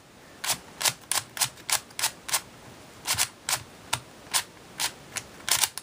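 Plastic layers of a Cube4You 3x3x5 cuboid puzzle clacking as they are turned by hand: a quick, irregular run of sharp clicks, about two to three a second.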